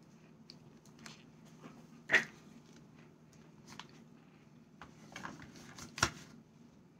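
Cornstarch being bitten and chewed: scattered crisp, squeaky crunches, the loudest two about two seconds in and near the end, with softer crackles between.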